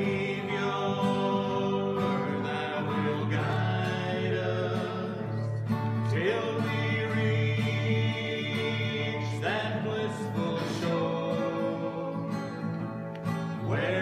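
Two acoustic guitars strumming a country gospel tune, with a strong chord struck every three seconds or so and the notes ringing on between.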